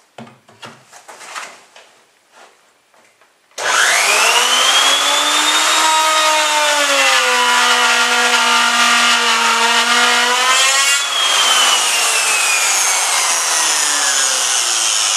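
Hand-held electric router switched on about three and a half seconds in, its motor whine rising quickly to speed, then running loud while the bit cuts a slot in OSB board, the pitch sagging a little as it bites into the wood. Light handling clicks come before it starts.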